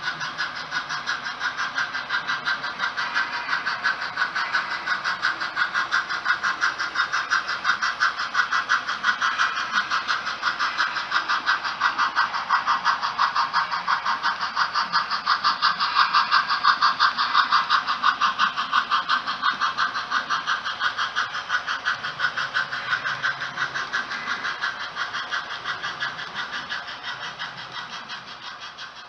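HO-scale model train running along the layout track: a rapid, even pulsing that grows louder toward the middle and fades near the end as it passes.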